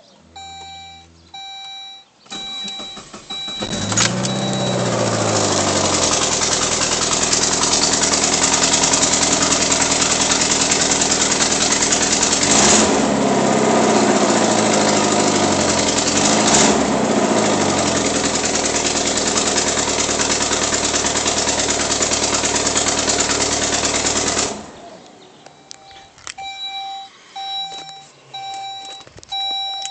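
2003 Saab 9-5 engine started after a few seconds of repeating dashboard chime beeps. It flares up on catching, then runs loud with two brief revs before being switched off, and the chimes come back after. The loud exhaust noise comes from a manifold leak caused by broken exhaust manifold studs.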